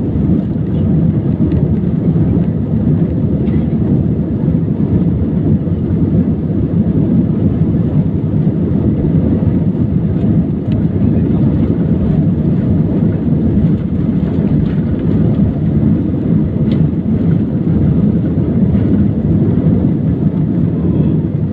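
Steady engine and rolling rumble inside the cabin of an Airbus A320 moving along the runway.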